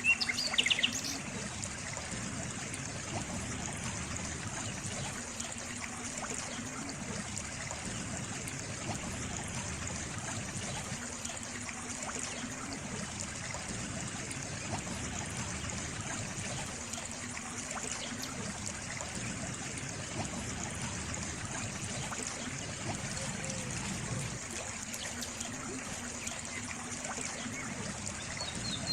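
Water trickling and running steadily, like a small stream. A bird gives a short run of quick chirps right at the start.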